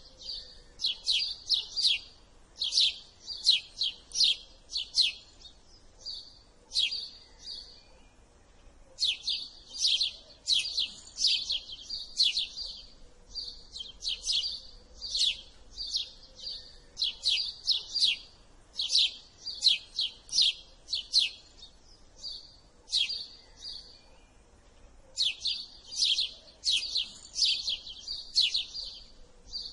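House sparrow chirping: fast runs of short, sharp chirps, several a second, in bouts broken by short pauses.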